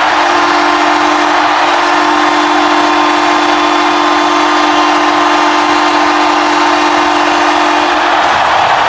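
Ottawa Senators' 1998–99 arena goal horn sounding one long, low, steady blast that cuts off about eight seconds in, signalling a goal, over loud crowd cheering that carries on after it.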